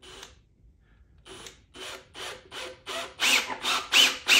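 Ryobi cordless drill boring a pilot hole into a wooden board. The drill runs in short pulses, about three a second, starting about a second in and growing louder toward the end as the bit cuts deeper.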